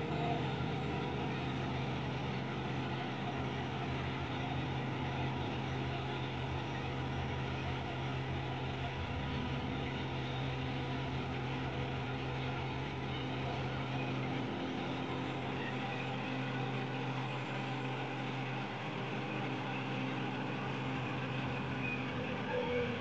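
Concrete pump truck's diesel engine running steadily, driving the hydraulics as the boom unfolds, with a constant low hum that shifts slightly about fourteen seconds in.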